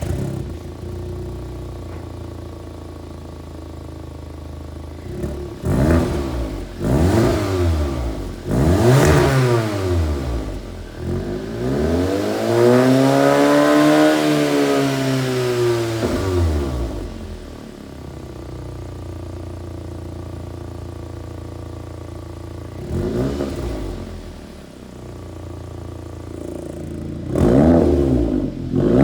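Audi S3's turbocharged four-cylinder engine through a one-off exhaust with a variable-valve rear silencer: it fires up and idles, then is revved in short blips, one long rev that rises and falls, and a few more blips near the end.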